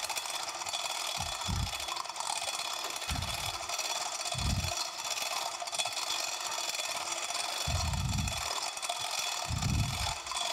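Manual chain hoist being pulled hand over hand, its load chain rattling and clicking steadily as it lifts a heavy cast-iron machine table, with several dull low thumps along the way.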